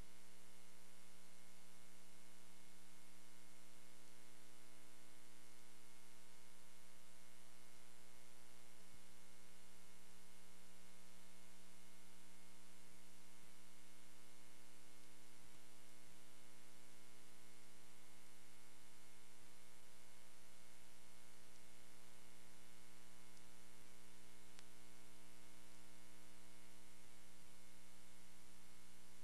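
Steady electrical mains hum with hiss, unchanging throughout, with no clear game sound above it.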